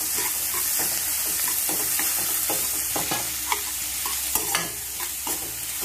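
Sliced onions sizzling in hot oil in a black kadai, stirred with a steel spoon that scrapes and taps against the pan at irregular intervals.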